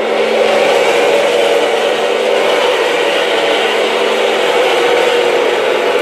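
Remote-control model Sherman tank driving across a wooden floor: a steady whirring, engine-like running sound from the tank's drive motors and tracks.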